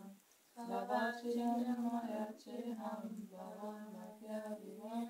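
A Sanskrit verse chanted on a steady reciting pitch, long held phrases with brief breaks for breath.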